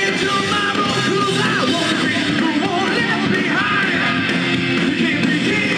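Live rock band playing: electric guitars, bass and drums, loud and unbroken.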